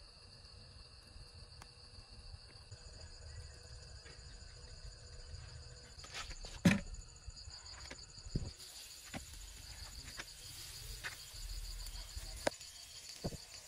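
Crickets chirping steadily in a high pulsing trill, with a few sharp knocks as bamboo skewers of eel are set down on a wire grill rack over charcoal; the loudest knock comes about halfway through.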